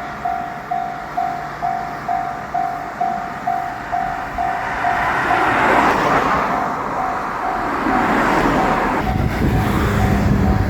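Japanese railroad crossing bell ringing in a steady clang a little over twice a second. A diesel train draws near from about halfway through, its noise swelling over the bell, and its low engine rumble comes in strongly near the end as it reaches the crossing.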